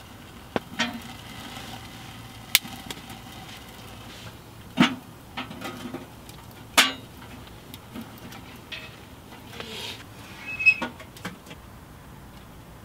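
Dry twigs being fed into a small wood stove while it is being lit: a run of sharp, irregularly spaced clicks, snaps and knocks of wood against the stove, with a brief high note near the end.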